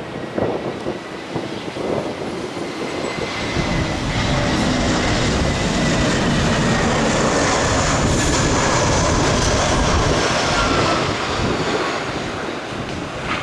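Boeing 737 BBJ's CFM56 jet engines running as the aircraft rolls along the runway after landing: a steady rush with a high whine that falls slightly in pitch. It swells to its loudest in the middle and eases near the end.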